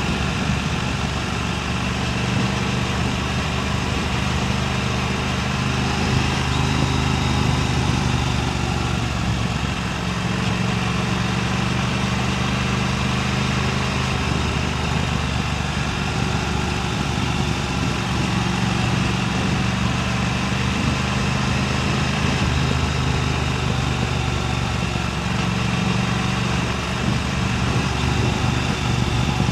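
Motorcycle engine running at steady revs, a low hum whose pitch shifts slightly a few times, over a constant rush of wind noise on the microphone.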